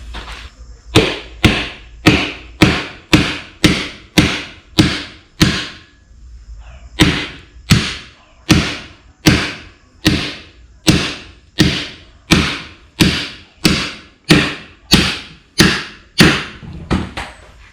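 Hammer blows on a homemade steel bead-breaker tool wedged against a tractor tyre rim, driving it in to break the tyre's bead. About two sharp, ringing strikes a second, with one brief pause partway through.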